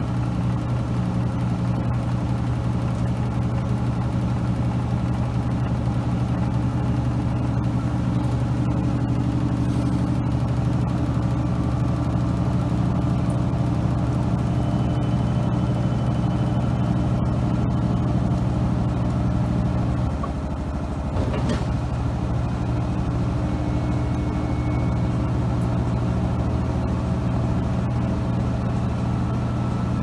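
Maytag Commercial Technology front-load washing machine running, its motor humming steadily as the drum turns the load. About twenty seconds in, the hum drops briefly and then picks up again.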